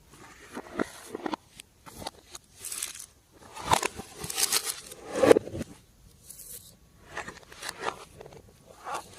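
Slime being worked by hand, with irregular sticky crackles, squishes and small pops.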